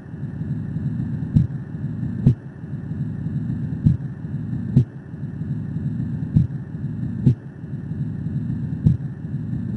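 Heart sounds recorded through a stethoscope: a pair of short dull beats repeating about every two and a half seconds, over a steady low rushing noise that fills the gaps between beats.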